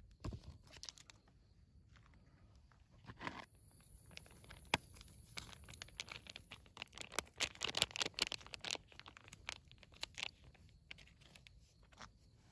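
Crinkling and rustling with many scattered sharp clicks, busiest a little after the middle, like something crinkly being handled on the move. A faint, steady high insect chirr runs beneath.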